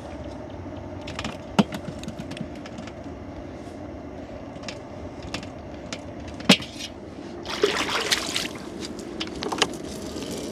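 Gill net being hauled aboard a small boat by hand: sharp clicks and knocks of net, floats and fish against the hull, with a splash of water about eight seconds in, over a steady low hum.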